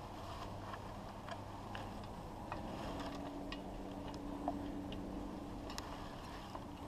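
Faint, irregular light ticks and clicks of metal parts as a mounting bolt is started by hand into the lower unit of a Yamaha 40 hp outboard, over a low steady hum.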